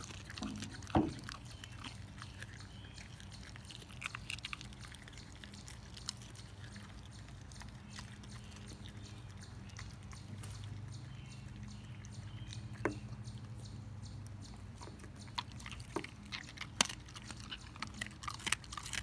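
German Shepherd chewing and crunching a raw beef rib, with irregular crunches that come thickest in the last few seconds. A steady low hum runs underneath.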